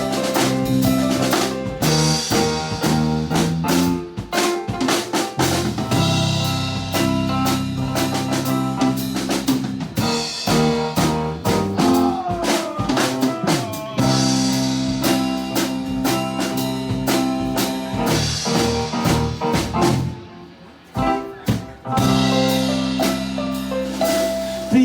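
A live band playing an instrumental break, driven by a drum kit with snare and bass drum hits over held chords. The band drops out briefly about twenty seconds in, then comes back in.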